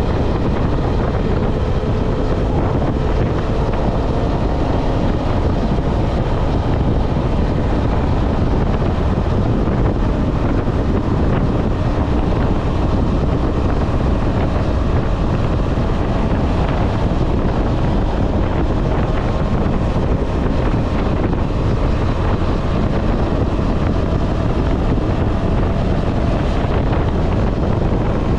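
Steady rush of wind on the microphone at highway speed, with the KTM 250 Adventure's single-cylinder engine running underneath as a faint tone that drifts slowly in pitch.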